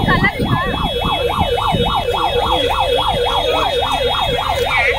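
Electronic yelp siren sounding continuously: a fast up-and-down wail repeating about four times a second, over low street crowd noise.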